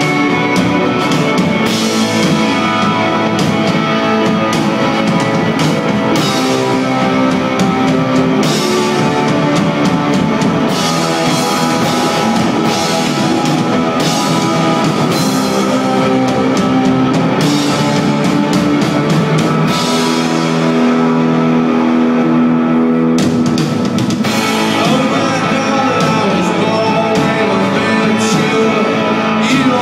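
Live rock band playing: electric guitars over a drum kit, with cymbal and drum hits, recorded loud on a phone from the audience.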